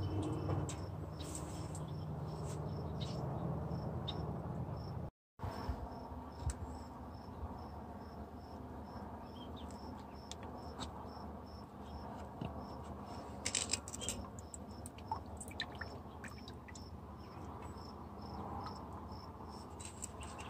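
A cricket chirping steadily, about two or three short high chirps a second. Over it come a few soft rustles and clicks as a plastic nursery pot of potting soil is pressed and handled, and the sound drops out briefly about five seconds in.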